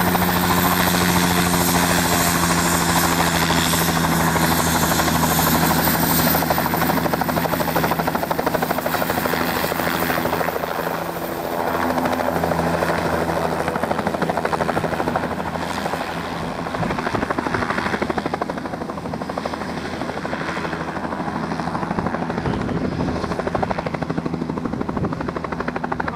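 Light helicopter lifting off and flying away: a steady rotor beat with a high engine whine, loud at first and then fading over the last ten seconds as it moves off.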